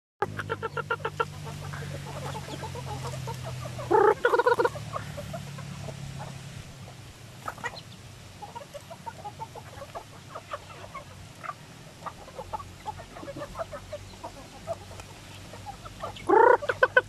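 A flock of chickens clucking while they feed on the ground. There are rapid runs of clucks at the start and near the end, a loud call about four seconds in, and scattered single clucks in between.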